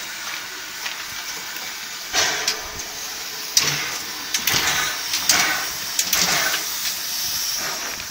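Narrow-gauge steam locomotive hissing steadily, with louder puffs of steam roughly once a second from about two seconds in.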